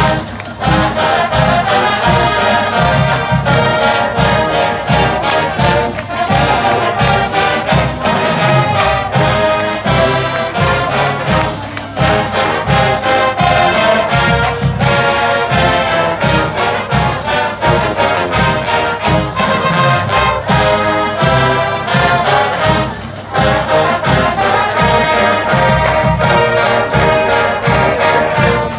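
College marching band playing its school fight song: full brass with sousaphones over a steady drum beat, with short breaks between phrases about 12 and 23 seconds in.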